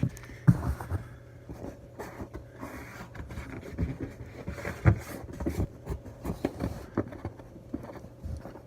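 Irregular handling noises: light taps, rubbing and clicks, with two sharper knocks about half a second in and about five seconds in.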